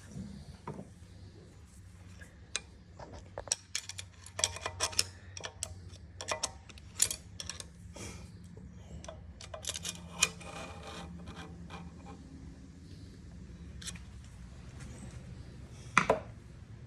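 Irregular metal clinks, taps and scrapes of hand tools such as pliers working against engine parts inside an opened small engine crankcase, over a steady low hum, with one sharper knock near the end.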